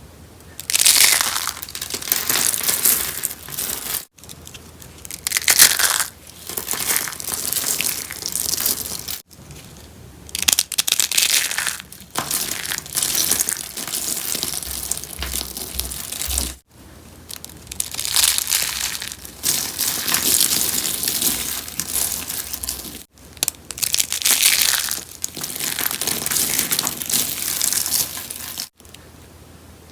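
Rose soap being crushed, a dry crackling crunch that comes in bouts of a few seconds, with abrupt cuts between them.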